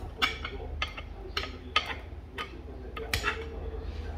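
Metal chopsticks clicking and scraping against a black iron serving platter while grilled hairtail is picked apart: about ten sharp, irregular clicks. A low steady hum lies underneath.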